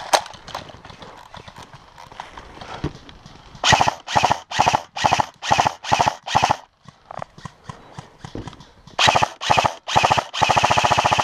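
Footsteps crunching through dry leaves at about two steps a second, then an airsoft rifle firing a long full-auto burst from about ten seconds in, a fast even stream of shots.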